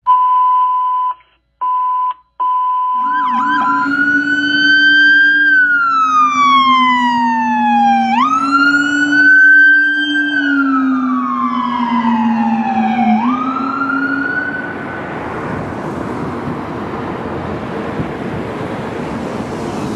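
A steady electronic beep tone, broken twice, then an emergency vehicle's electronic siren wailing in slow rising and falling sweeps, with a deep low-frequency howler tone running under it. After about 15 seconds the siren fades out into the rumble of passing traffic.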